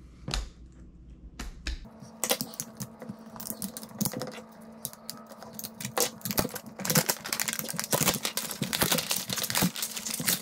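Plastic heat-shrink wrap on a lithium-ion battery pack being snipped open and peeled off by hand: a few clicks at first, then from about two seconds in a dense run of crackling and snapping that grows busier toward the end.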